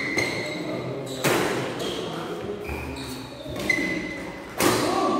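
Badminton doubles rally in a sports hall: two loud racket hits on the shuttlecock, about a second in and near the end, each ringing off the hall. Between them come short, high squeaks of players' shoes on the court.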